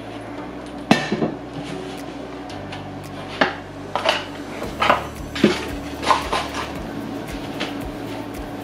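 Tableware and metal utensils clinking and knocking against each other in a string of separate sharp strikes. One strikes about a second in, and a quicker run follows between about three and a half and six and a half seconds.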